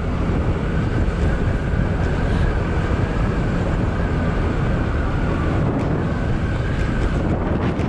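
Motorcycle riding at a steady speed: wind rushing over the microphone and the engine running underneath, with a faint steady high tone.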